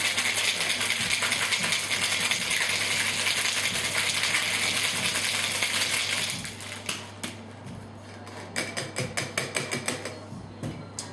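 Ice rattling hard inside a Boston cocktail shaker being shaken for a mai tai, a fast, dense clatter that stops about six seconds in. Scattered clinks and taps follow.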